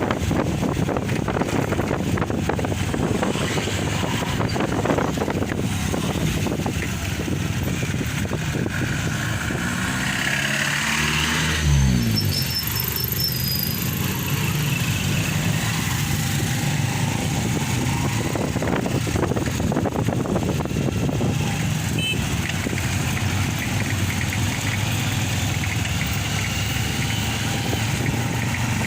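A motor vehicle's engine running steadily, its pitch dropping and climbing back about ten to twelve seconds in.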